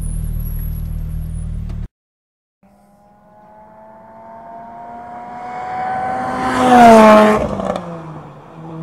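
Lotus Exige engine drones steadily, heard from inside the cabin, and cuts off about two seconds in. The car is then heard on the track, its engine note climbing as it closes in. It passes, loudest about seven seconds in, with the pitch dropping as it goes by, and fades away.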